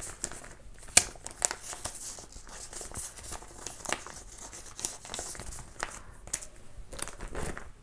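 Paper cards being pulled out of and slid into the clear plastic pockets of a photocard binder page: the sleeves rustle and crackle in short bursts, with a sharp click about a second in.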